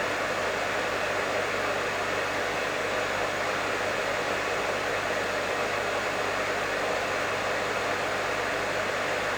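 Professional hair dryer running continuously: a steady, even rush of airflow noise with a faint low motor hum underneath.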